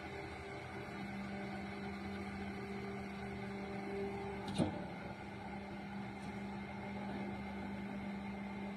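Hydraulic baling press running: a steady electric motor and pump hum whose pitch settles in about a second in, with one short knock about halfway through.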